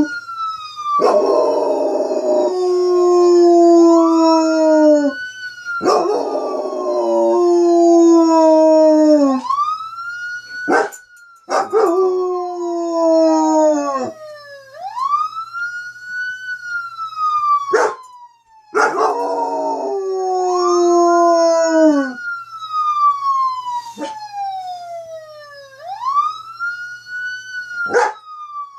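A dog howls like a wolf along with a wailing police siren played from a video. The siren rises and falls slowly over and over. The dog gives two long howls close together early on and a third about two-thirds of the way through, each sliding slowly down in pitch.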